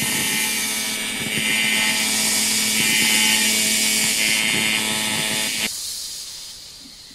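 Welding-arc sound effect: a loud crackling hiss over a steady buzzing hum, which cuts off suddenly about five and a half seconds in, leaving a hiss that fades away.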